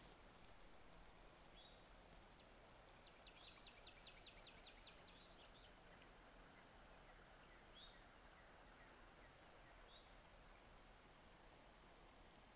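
A songbird faintly singing a quick run of about ten falling notes, about five a second, a few seconds in. A few short high chirps come before and after it, over a faint steady hiss.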